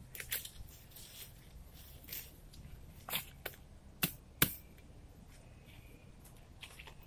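Dry leaves, twigs and pine litter crackling and snapping in scattered short crunches as hands work the forest floor, the loudest two snaps coming close together about four seconds in.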